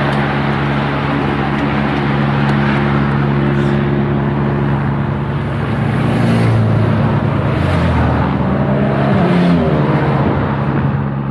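A cycle race convoy passes close by on the road: the last riders of the peloton, then a BMW motorcycle and a line of following cars, with tyre noise and an engine note that rises and falls near the end. Underneath runs a steady low drone from a helicopter overhead.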